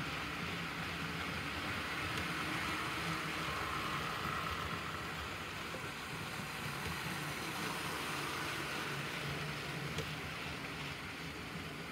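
HO scale model freight train rolling past on the track: a steady whir of the locomotive's motor and the cars' wheels on the rails, with a single faint click about ten seconds in.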